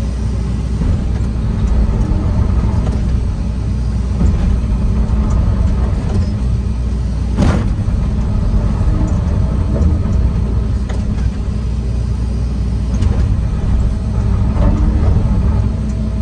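John Deere 245 excavator's diesel engine running steadily under digging load, heard from inside the cab, as the bucket works into hard gravel. Occasional clunks of the bucket, the loudest about seven and a half seconds in.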